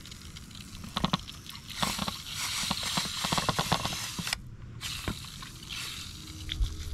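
Hand-pump pressure sprayer hissing as it mists foaming degreaser onto a string trimmer shaft, with scattered clicks from the trigger and pump. The spray stops briefly about four and a half seconds in, then goes on more faintly.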